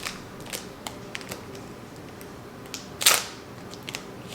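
Basketball trading cards and their pack being handled: scattered light clicks and taps, with one louder brief swish about three seconds in.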